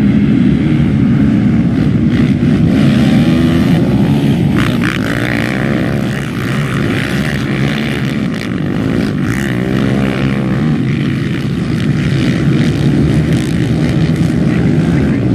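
A pack of racing ATVs running hard, many engines revving together, their pitch rising and falling as the quads pass close by and pull away.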